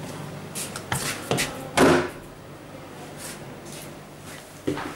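Walk-in cold room door being unlatched at its lever handle and pulled open: a few clicks from the handle and latch, then the loudest sound, the door coming open, about two seconds in.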